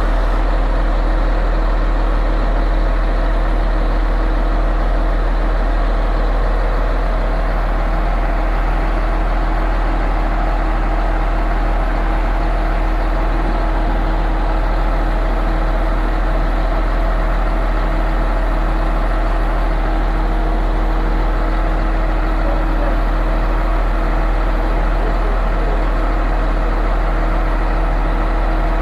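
Heavy diesel engine of a concrete pump truck running steadily, a constant deep rumble with a steady hum above it.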